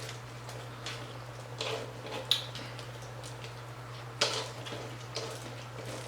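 Chewing a stand-and-stuff hard taco shell, with a few short crunches and mouth noises spaced irregularly, the sharpest about two and four seconds in, over a steady low hum.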